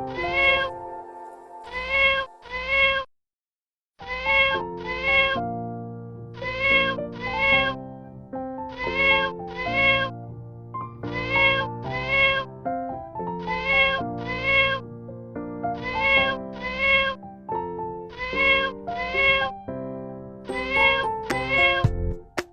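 Cat meows in pairs, repeated identically about every two seconds like a looped sample, over background music. Everything cuts out for about a second near the start.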